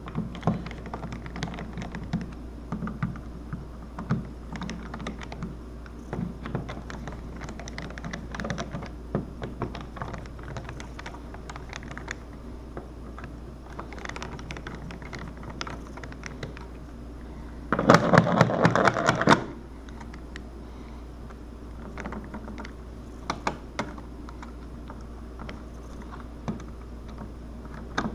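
Small clicks and taps of hand work at a wall switch plate, scattered irregularly, with a louder burst of rapid clatter about two-thirds of the way through lasting about a second and a half. A steady low hum sits underneath.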